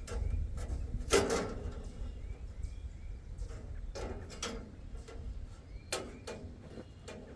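Scattered knocks and clatters, the loudest about a second in, with a few more around the middle and later, over a low rumble.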